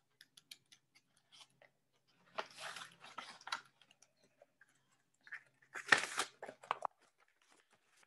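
Construction-paper volcano model rustling and crinkling as it is handled, in two bursts about three seconds apart, with a few light clicks before them.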